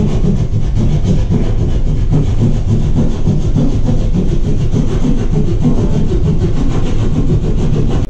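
Hand drywall jab saw cutting through gypsum drywall, a steady rasping of the blade working back and forth through the board.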